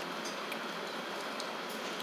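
Steady hissing background noise with a few faint, light clicks.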